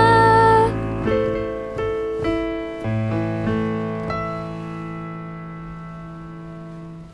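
A sung note held for just under a second over digital piano, then slow piano chords struck about every half second, the last one left to ring and fade away.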